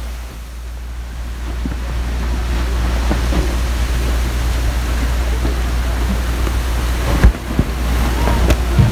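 Boat in dense brash ice: a steady low rumble of engine and wind on the microphone, with crunching and knocks of ice against the hull. The loudest knock comes about seven seconds in, with another near the end.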